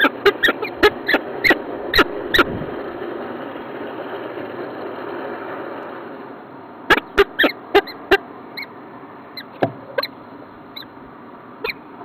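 Peregrine falcon plucking and tearing at a green woodpecker on its nest ledge: quick runs of sharp clicks and taps, one in the first couple of seconds and another about seven seconds in, with scattered fainter ticks after, over a steady rushing background.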